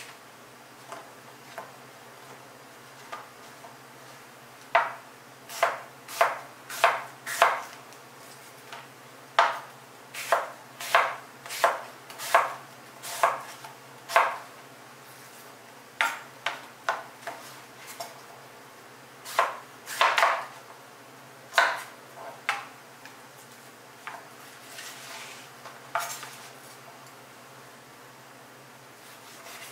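Chef's knife slicing apples on a wooden cutting board: a run of sharp, irregular knocks as the blade cuts through and meets the board. They come thick and fast in the middle and thin out near the end.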